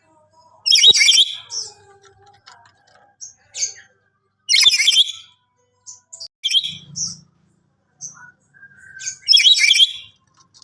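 Black-capped lory calling: three loud, harsh screeches about four seconds apart, with shorter, quieter whistles and chatters between them.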